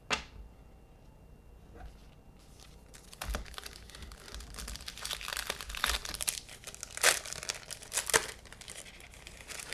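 A single sharp tap, then the plastic wrapper of a trading card pack being torn open and crinkled by hand, with two louder crackles near the end.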